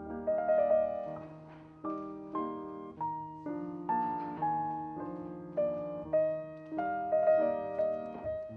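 Solo piano music: a calm melody of single struck notes, each dying away, over held lower chords.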